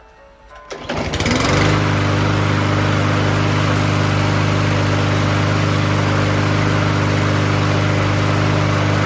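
Briggs & Stratton 163cc single-cylinder lawn mower engine starting about a second in, rising briefly in pitch and settling into a steady run, then dying away near the end. It runs again after its dirty carburetor was cleaned.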